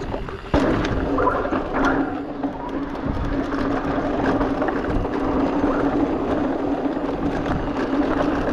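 E-mountain bike riding down a dirt trail: wind and rattling over the ground, with a steady low moaning howl from the disc brakes. The rider takes the brake noise for glazed-over, worn-out pads.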